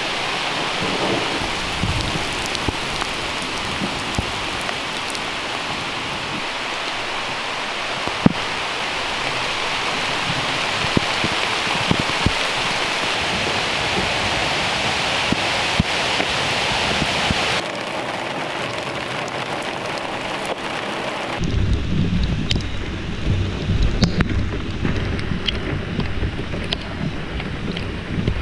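Rain from a thunderstorm pouring down through the tree canopy, a steady, dense hiss. About three quarters of the way through, the hiss thins out and a low, rough rumble takes over, with scattered sharp drop taps.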